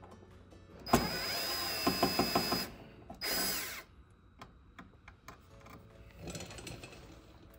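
Cordless drill/driver running in two bursts, the first about two seconds long with a few sharp clicks near its end and the second under a second, backing out the screws that hold a printer's pressure pump. A fainter short burst follows near the end.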